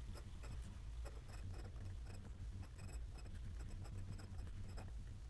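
Glass dip pen nib scratching across notebook paper as a word is written: a faint, irregular run of small scratches and ticks.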